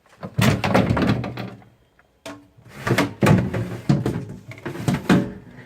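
Plastic crisper drawers at the bottom of a refrigerator being pulled open and handled: sliding and clattering in two spells.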